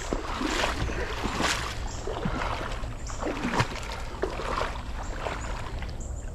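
Creek water splashing and sloshing irregularly, with a low steady rumble underneath.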